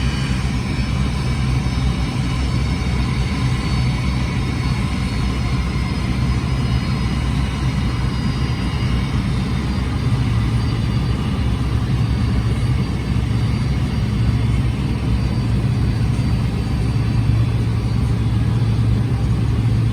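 Steady engine rumble with a deep low drone that swells slightly about halfway through, and a faint high whine that fades over the first few seconds.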